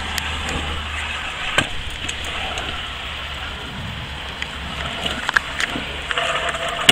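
Stunt scooter wheels rolling over a concrete skate park surface, a steady gritty rolling noise over a low rumble, with a few sharp knocks of the scooter on the concrete.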